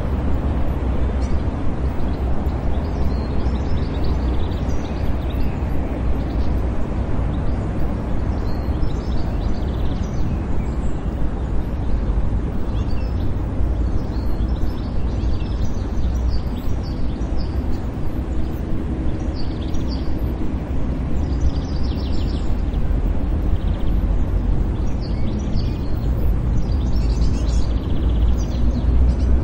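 City park ambience: a steady low rumble of distant traffic with scattered bird chirps.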